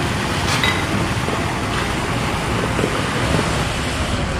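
Wind blowing across the microphone: a steady, uneven rush of low noise.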